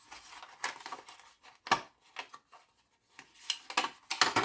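A 3-in-1 USB charging cable being handled and taken out of its packaging: scattered clicks and rustles, busiest near the end.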